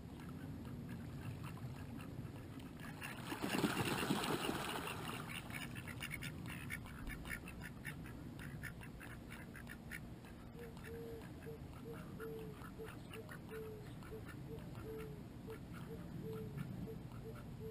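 Ducks quacking over and over, a quick run of short calls through most of the stretch, with a series of short, evenly spaced quacks from about ten seconds in. A brief, louder burst of rushing noise comes about three to four seconds in.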